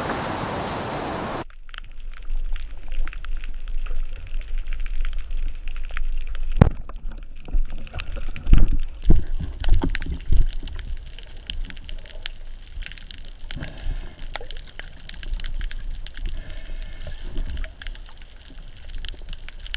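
Underwater sound picked up through an action camera's waterproof housing: a low water hum with many scattered small clicks, one sharp click, and a run of dull low thumps partway through. It opens with a steady hiss that cuts off suddenly after a second and a half.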